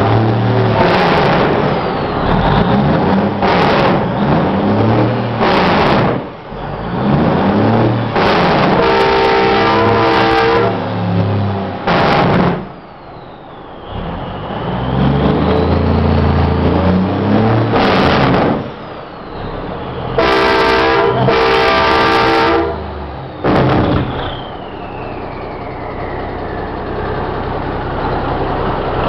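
1972 Peterbilt 359's diesel engine revved in repeated loud blips through its pipes, with the jake brake barking as the revs drop and a turbo whistle winding down after some blips. Train horns blow twice, each time for about two seconds, once around a third of the way in and again past two thirds.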